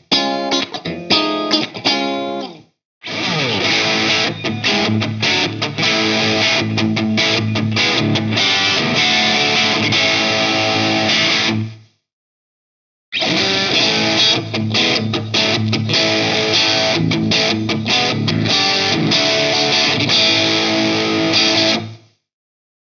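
SLX Hawk Classic 22 HSS electric guitar, with Alnico V humbucker and single-coil pickups, played with a distorted tone. A short phrase of separate picked notes gives way to two long stretches of dense riffing. Each stretch stops abruptly, with a silent gap of about a second near the middle.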